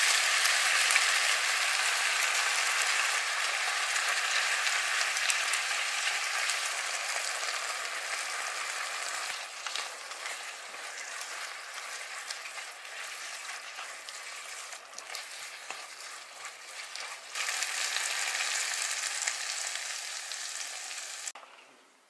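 Glass noodles, pork, onion and peppers stir-frying in a spicy sauce in a frying pan: a steady sizzle with the light clicks of chopsticks stirring through it. It eases off in the middle, gets louder again about seventeen seconds in, then cuts off abruptly near the end.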